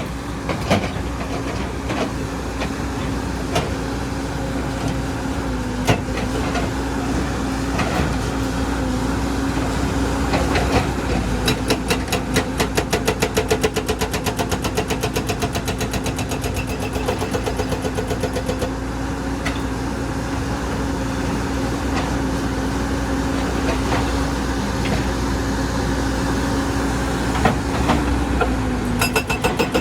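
Excavator's diesel engine running steadily, with a few sharp knocks, such as rock or the bucket striking, scattered through.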